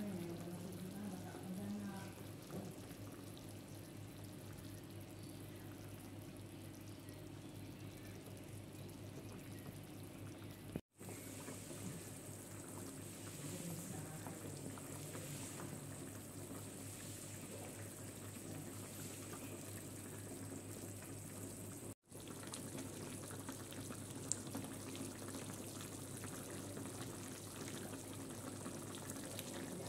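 Beef stew in soy sauce simmering in an aluminium wok: a steady, soft bubbling hiss with a low hum underneath, cutting out for an instant twice.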